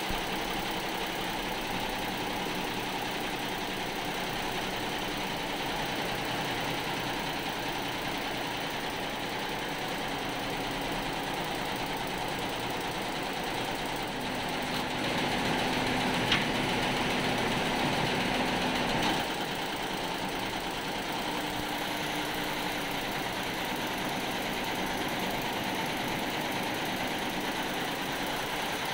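Multi-head computer embroidery machine running steadily as it stitches. The sound grows a little louder for a few seconds around the middle, with a faint hum and one sharp tick.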